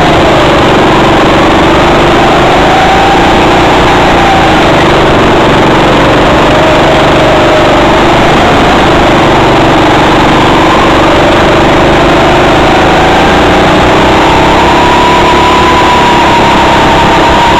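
Go-kart engine running steadily under way, its pitch slowly falling and rising through the corners and climbing toward the end. It is loud enough to overload the onboard microphone.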